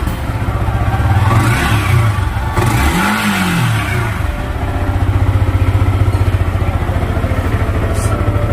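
Yamaha R15 V4's single-cylinder engine blipped a couple of times, with one rev rising and falling about three seconds in, then settling to a steady idle. Its exhaust note has changed from normal, which the owner puts down to the bike standing unused for three or four days.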